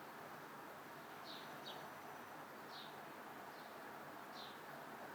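Faint outdoor ambience: a steady background hiss with a small bird chirping, short high chirps about once a second.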